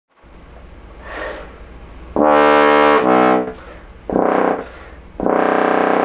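Trombone playing a short phrase of four notes: a loud note about two seconds in, a short one right after it, another near four seconds, and a long held note starting just past five seconds, with an intake of breath before the first.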